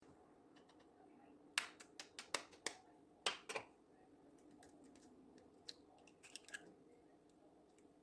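A quick run of sharp clicks and taps, about nine in two seconds, then a few softer ones about two seconds later, as small objects are handled.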